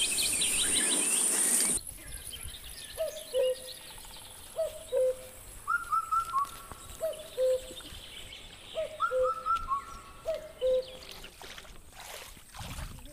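Birds calling outdoors: short low calls that drop in pitch, in pairs about every second and a half, with higher chirps twice in the middle. A high steady insect drone runs under the first two seconds and cuts off abruptly.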